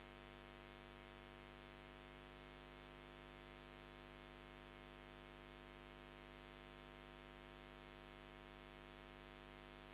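Near silence: a faint, steady electrical hum made of several unchanging tones.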